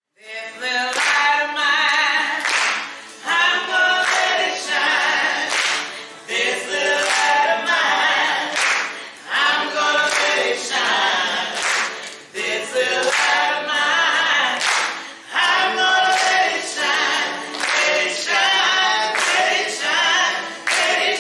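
A group of voices singing a cappella in phrases of a few seconds each, with sharp hand claps scattered through.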